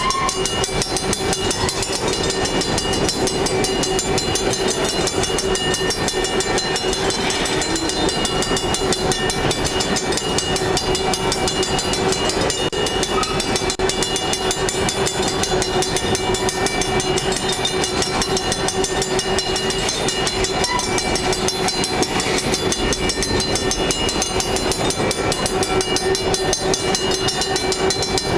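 Freight train of coal hopper cars rolling past close by: a continuous loud rumble and rattle of wheels and cars, with a steady tone running through it.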